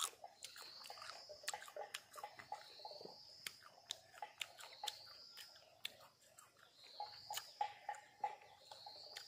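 A person chewing and biting firm, unripe green nhót (Elaeagnus) fruit, with many small irregular clicks. A faint high call rising and falling repeats about every two and a half seconds in the background.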